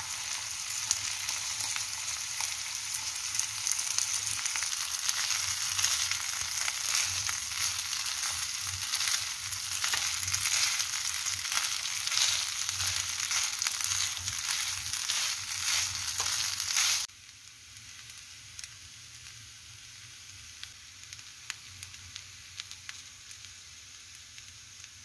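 Rice, carrots and onion frying in rendered pork fat in a pan: a steady sizzle with short clicks of the stirring spatula. About 17 seconds in, it drops suddenly to a fainter, steady sizzle.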